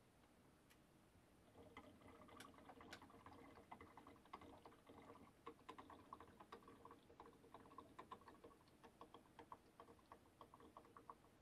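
Faint glugging of a cyan Canon ink bottle draining into the ink tank of a Canon Pixma G7020 printer: quick, uneven bubbly gurgles that start about a second and a half in, the tank still filling.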